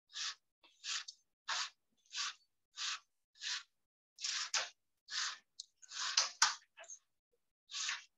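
Plastic weaving strip being worked through a basket weave by hand, a run of short rasping strokes, roughly one every two-thirds of a second, with a few sharp clicks about six seconds in.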